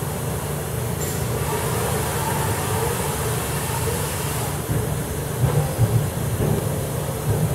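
Doosan NHM 8000 horizontal machining center running with coolant spraying around the spindle: a steady machine hum under a hiss of spray that eases about halfway through. It runs smoothly, with no abnormal noises.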